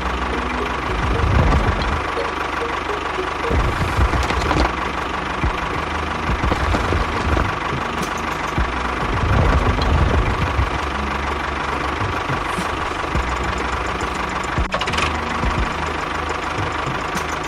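An engine running steadily, with a constant high whine and a low rumble that swells a few times.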